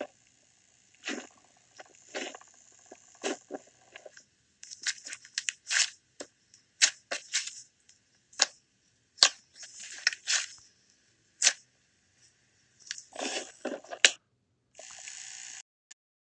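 Hands pressing, poking and folding butter slime: an irregular run of squishes and sharp crackling clicks. A short hiss sounds about a second before the end.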